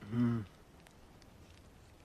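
A man's short, low 'mm' lasting about half a second at the start, then only faint room hiss.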